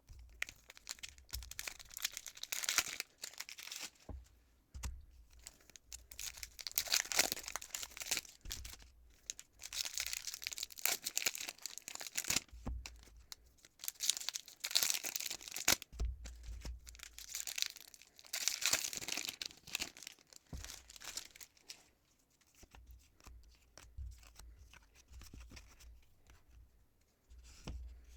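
Foil trading-card booster pack wrapper being torn open and crinkled, in several bursts of ripping and rustling, then quieter handling near the end.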